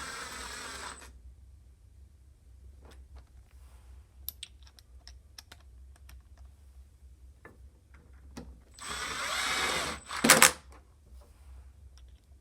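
Cordless drill driving the vise's mounting screws into the wooden bench top in two short runs, one ending about a second in and a louder one near the end that finishes with a sharp burst, with small clicks of handling between.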